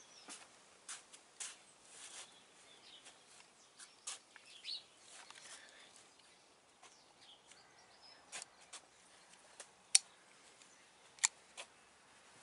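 Scattered light metal clicks and taps from handling the carburettor air-intake elbow of a Ransomes Matador mower and working its choke lever, with two sharper clicks near the end about a second apart.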